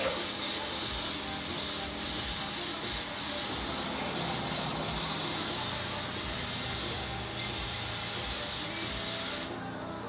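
Air spray gun spraying reduced Raptor bed liner onto a jetski's hull: a loud, steady hiss of air and coating with a few brief dips, cutting off near the end.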